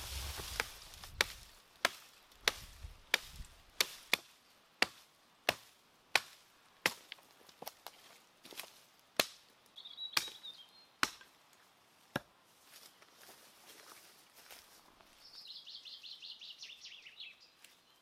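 Axe chopping wood: about twenty sharp blows, a little under two a second, that stop about twelve seconds in.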